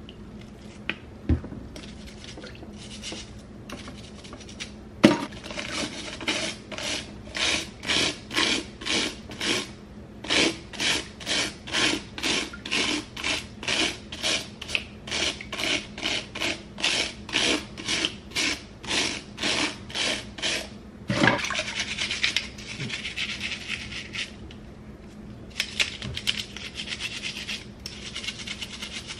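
A small stiff-bristled cleaning brush, wet with dish soap, scrubbing the bristles of a hairbrush in steady back-and-forth strokes about twice a second. Near the end the scrubbing turns faster and more continuous.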